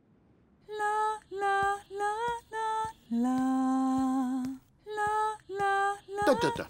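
A female cartoon voice singing a wordless tune without accompaniment: short separate notes with small gaps, starting under a second in, and one longer, lower note held about halfway through.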